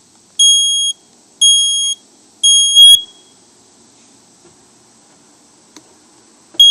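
Battery-powered smoke alarm sounding during its test: three loud, high-pitched beeps of about half a second each, a pause of about three and a half seconds, then the next set beginning near the end. This is the standard three-beep smoke alarm signal, and it shows the alarm's horn is working.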